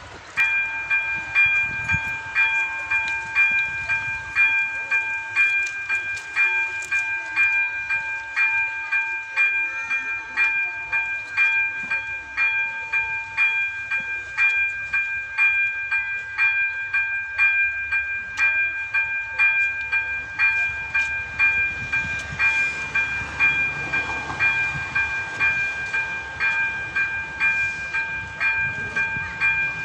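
Electronic ZV-02 level-crossing warning bell switching on about half a second in and then ringing steadily, a repeated ding at about two strokes a second over a held tone. It is the crossing's warning that a train is approaching.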